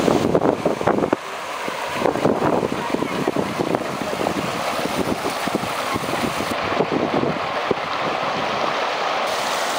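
Floodwater gushing up out of the road surface at a drain and splashing: a steady rush with irregular splashes throughout.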